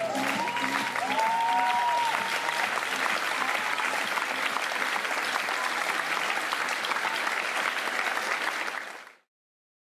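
Theatre audience applauding loudly at the end of a stage number, with a few voices calling out over the clapping in the first two seconds. The applause cuts off abruptly near the end.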